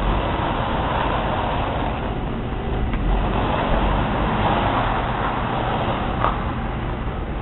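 Steady rumbling background noise that swells and fades a little, with a faint click about six seconds in.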